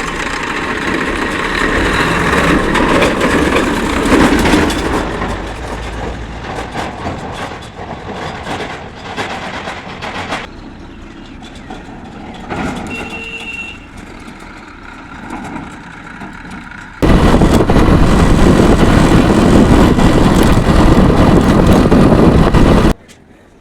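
A vehicle running with road noise. About two-thirds of the way through, a very loud, even rush of noise starts suddenly and cuts off suddenly some six seconds later.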